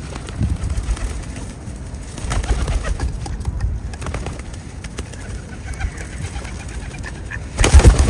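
Birds giving low cooing calls, in a couple of short bouts. A sudden loud, noisy burst starts near the end.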